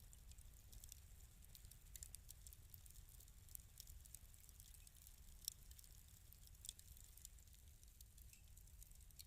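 Faint wood fire crackling in a fireplace: scattered small pops and snaps over a low rumble, with a sharper pop about five and a half seconds in and another about a second later.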